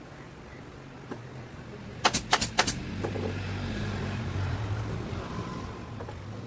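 An upholstery staple gun fires four quick shots, about two seconds in. A low hum then swells and fades.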